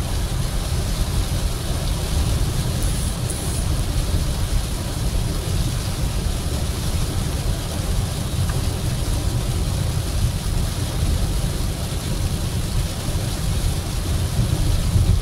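Steady road noise inside a car cruising at highway speed on a wet road: a low rumble with a hiss of tyres on the wet surface.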